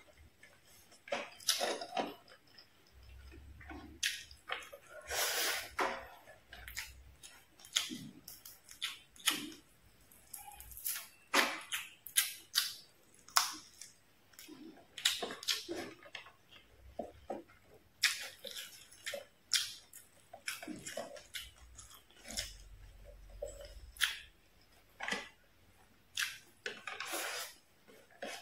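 Close-miked chewing of stir-fried fish and rice: irregular wet mouth clicks and smacks, a few of them sharp and loud.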